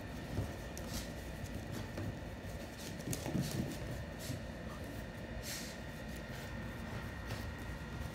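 Shih Tzu puppy and kitten wrestling on a hardwood floor: scattered light clicks and taps of claws and paws on the wood, with a brief louder scuffle about three seconds in.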